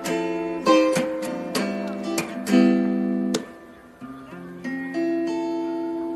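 Acoustic guitar music, strummed chords over the first few seconds, then softer held chords from about four seconds in.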